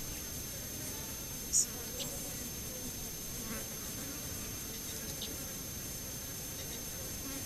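Flying insects buzzing steadily around a desert spring, with one short, high chirp about a second and a half in.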